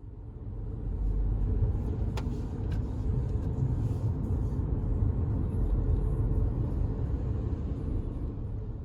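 Steady low road rumble of a moving car, heard from inside the cabin, with a single sharp click about two seconds in.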